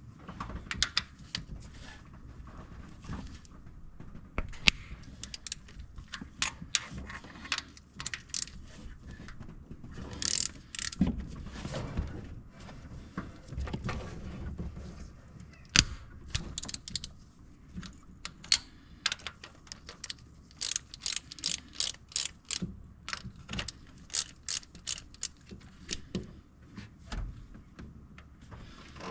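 Hand-tool work on the AMC 360 V8's valvetrain: irregular metal clicks and clinks, with a denser run of quick clicks in the second half, as the rocker arm bridge assembly is unbolted.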